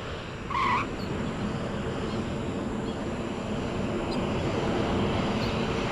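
Airliner jet engines running as a steady rushing noise that grows slowly louder, with one short high squeak about half a second in.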